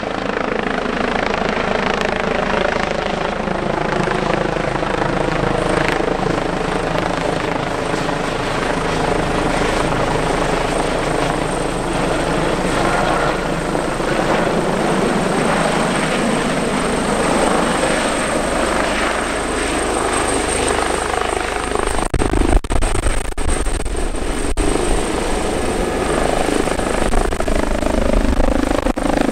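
Airbus Helicopters H145 twin-turbine helicopter flying low and close: loud, steady rotor and turbine noise with a steady high whine. The rotor's pitch sinks slowly over the first third and climbs again later, and from about three-quarters in a heavier low rumble with buffeting joins as the helicopter comes nearer.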